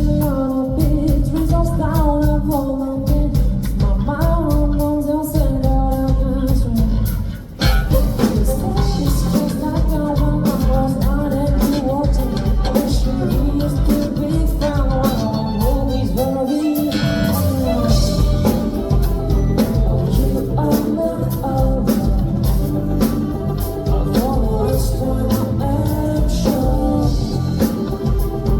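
Live rock band music: drums, bass and guitar under a melodic lead line, with a brief break about seven and a half seconds in before the full band comes back.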